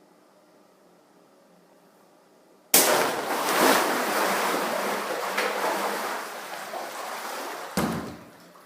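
Giant water-filled latex balloon bursting with a sudden pop about three seconds in, followed by several seconds of water gushing and splashing out that gradually fades, with a second thump near the end.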